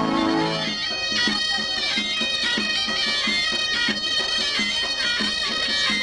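Folk music on a shrill reed wind instrument over a steady drum beat, taking over from a sustained, organ-like passage about a second in.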